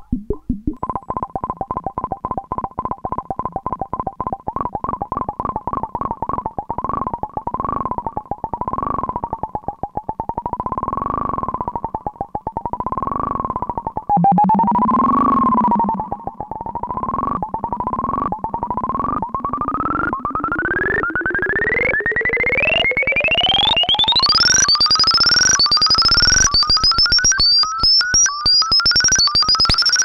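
Kawai S-100F monophonic analog synthesizer (single VCO) sounding a fast stream of short repeated pulses. The pitch swoops up and down around one note, then over the second half climbs higher and higher in a series of upward glides, ending very high. A delay effect from a Korg SDD-3000 is mixed in.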